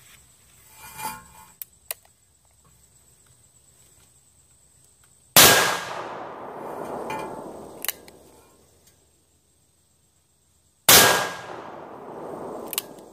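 Two shots from a Magnum Research BFR single-action revolver in .45-70, about five and a half seconds apart. Each is a sharp, very loud crack followed by a long echo fading over two to three seconds. A light metallic click follows about two seconds after each shot.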